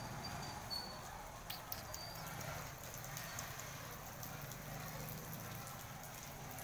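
Faint outdoor background noise, with a couple of short high chirps in the first second and a few light clicks a little later.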